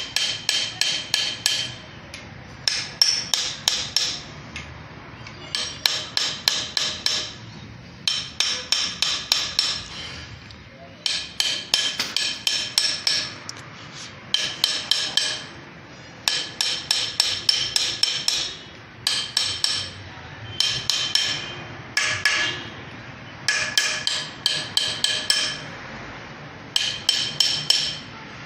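Hammer tapping the rear crankshaft oil seal of a Mahindra Scorpio mHawk engine into its housing at the flywheel end, metal on metal. The blows come in quick runs of about five to eight ringing strikes, one run roughly every two seconds with short pauses between.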